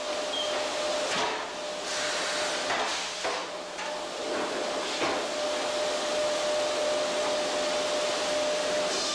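Sawmill log-deck machinery running loudly: a steady mechanical noise with a constant whine, broken by several sharp knocks and clatters in the first five seconds as a debarked log is handled on the steel deck.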